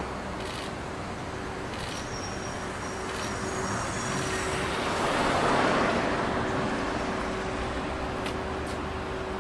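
A vehicle passing by, its rush swelling to a peak a little past halfway and fading again, over a steady low hum.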